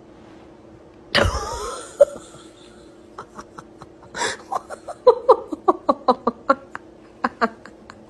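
A person laughing in a run of short, quick bursts, following a sudden loud noise about a second in.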